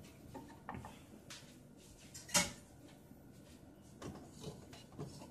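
Kitchen handling noises: a few light knocks and clicks as items on the stovetop are moved, with one sharper knock about two and a half seconds in.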